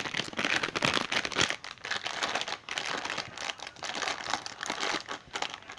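Hands rummaging through a tackle box: soft-plastic lure packets crinkling, with many small clicks and clatters of lures and plastic trays.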